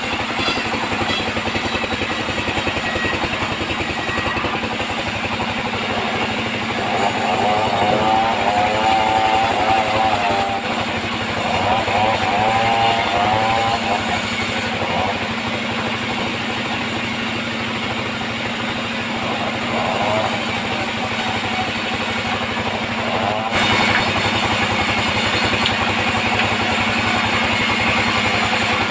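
Band sawmill running, its drive engine droning steadily while it saws mahogany. A wavering whine rises over the drone twice in the first half.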